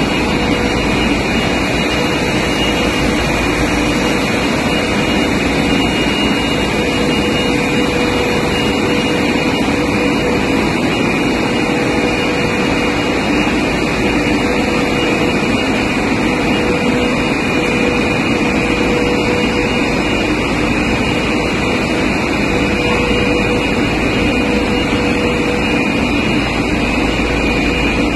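Double-sided extrusion PE coating machine running: a steady, even machine rush with a constant mid-pitched tone and a fainter high whine.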